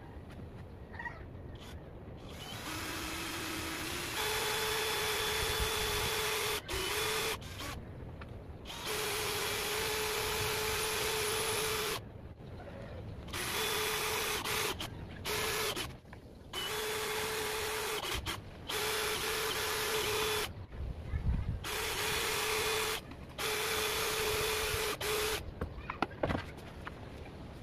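Cordless drill-driver running in a series of spurts of one to three seconds with short pauses between them, as it fixes concealed hinges to a plywood cabinet door.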